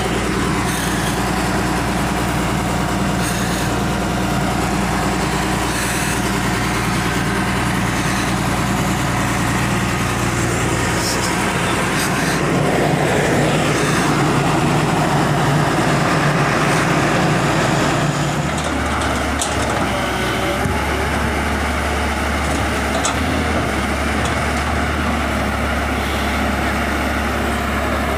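Diesel engine of a Tata Hitachi EX200LC Super crawler excavator running steadily. About 18 seconds in its note drops lower and then holds steady.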